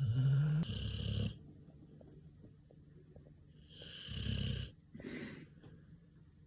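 An American Staffordshire terrier snoring in its sleep: two loud snores about three seconds apart, the first led in by a short rising tone, and a softer snoring breath soon after the second.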